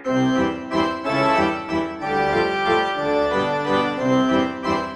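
Organ music: a short tune of held notes and chords that change every half second or so.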